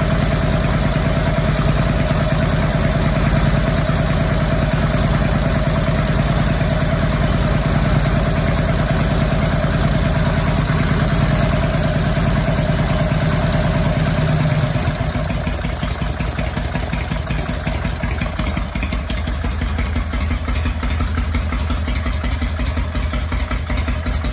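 Newly built 1955 Harley-Davidson Panhead V-twin, with ported heads and an Andrews camshaft, idling on open pipes during its first heat cycles. About fifteen seconds in the idle drops to a slower, lower, quieter beat.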